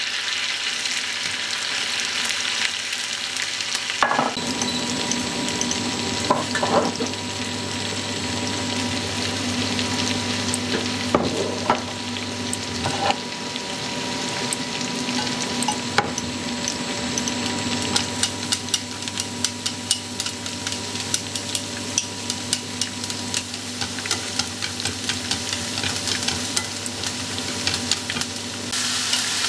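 Hot oil sizzling in a frying pan as tofu sticks fry, then as chopped shallots are stirred in the oil with chopsticks. A steady low hum joins about four seconds in, and the later part carries a quick run of sharp pops and taps.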